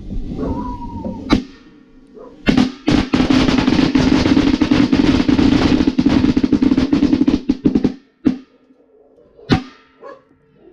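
A string of firecrackers going off in a pot: a few single sharp bangs, then a dense, rapid crackle of pops lasting about five seconds, then two last bangs near the end.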